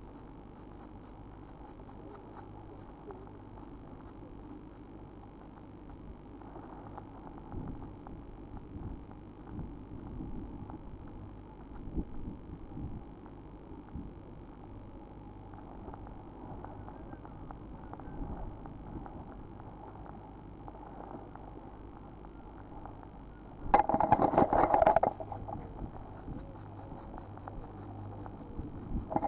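Blue tit nestlings begging: rapid, very high-pitched cheeping that tails off over the first ten seconds, then breaks out again loudly about 24 seconds in with a loud scuffle as an adult blue tit arrives at the nest. A faint steady hum runs underneath.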